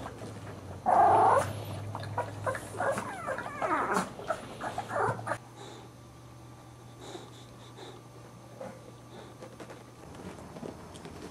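Boxer puppies crying and whining: a loud short cry about a second in, then a run of wavering high whines mixed with small clicks, fading to quiet after about five seconds.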